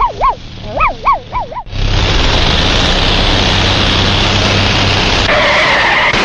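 A cartoon dog yapping in quick pairs of high, rising-and-falling yips. About one and a half seconds in it is cut off by a loud, steady rumble with a low hum, the sound of a cartoon army tank rolling along, and a wavering whine joins near the end.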